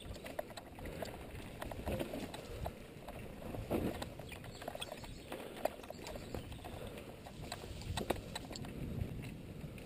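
Mountain bike rolling over a bumpy dirt trail: tyre rumble with irregular knocks and rattles of the bike over the bumps.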